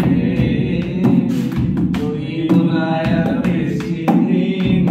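Bengali folk song playing: a singing voice over instruments, with a steady drum beat.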